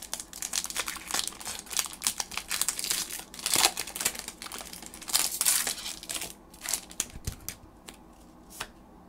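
Foil Pokémon booster pack wrapper crinkling and tearing as it is worked open by hand. The dense crackling thins out about six seconds in, leaving a few faint clicks.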